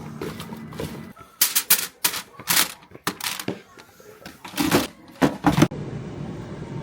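An irregular run of sharp clacks and clatters, some loud, lasting about four seconds. It gives way to a steady background hum near the end.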